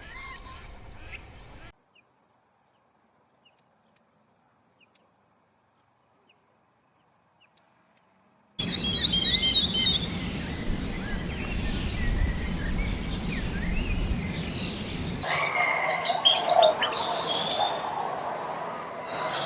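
Wild birds singing and chirping in a dawn chorus over a rumbling outdoor background, with a steady high note held for several seconds. It follows a few seconds of near silence. About 15 seconds in, the sound changes to a different stretch of bird calls.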